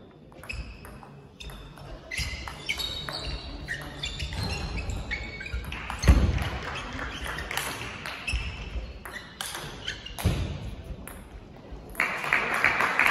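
Table tennis rally: the ball clicking sharply off bats and table in quick back-and-forth exchanges, with two heavier thuds along the way. Clapping starts near the end as the point is won.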